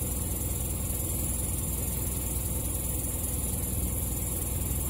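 Vehicle engine idling: a steady low rumble under a constant high-pitched hiss.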